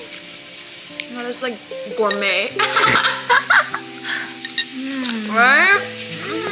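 Background music of held, overlapping notes, with a gliding vocal-like melody near the end, over a steady crackle of scattered small clicks.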